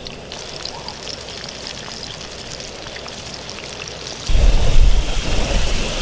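Battered chicken frying in a pan of hot oil, first fry: a steady crackling sizzle with many small pops. About four seconds in, a much louder low rumble comes in over it.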